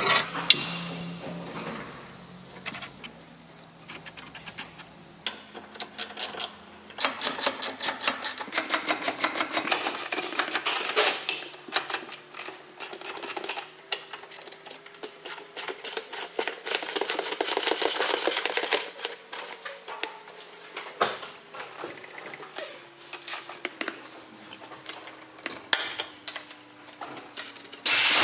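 Hand ratchet wrench clicking in quick runs of several clicks a second as a nut or bolt is turned, with pauses between runs. A faint steady hum lies underneath.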